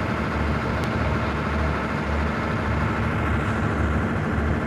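Diesel-electric engine of an SRT QSY-class locomotive running steadily with a low, uneven throb as the locomotive creeps slowly along the track during shunting.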